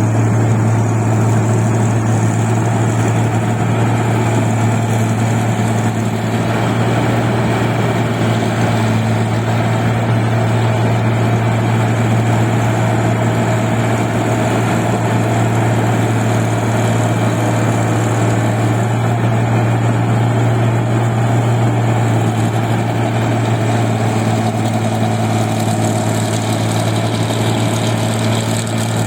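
Rice combine harvester's engine running steadily as the machine works, a constant loud low hum with no change in speed.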